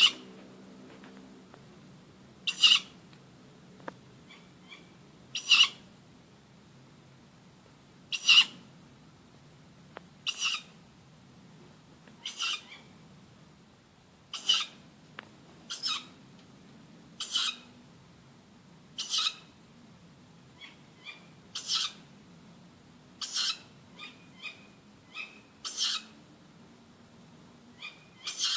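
Short, harsh shrieking calls repeated about every two to three seconds, with fainter, shorter notes between some of them. The calls come from a tree at night and are taken for a tawny owl.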